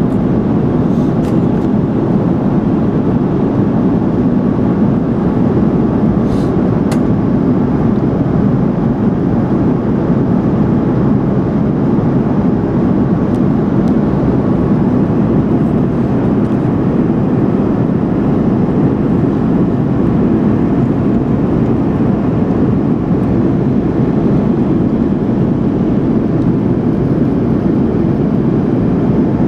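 Airbus A330 cabin noise heard from a window seat over the wing: a loud, steady rush of engines and airflow on the descent into landing, with a few faint clicks.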